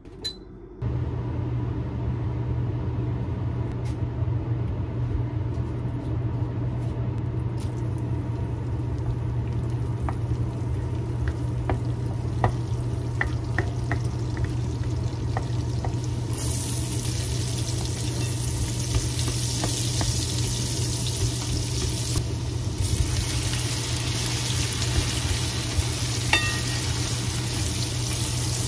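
Food sizzling in a frying pan on the stove. It starts suddenly about a second in, over a steady low hum, and the sizzle grows louder about halfway through.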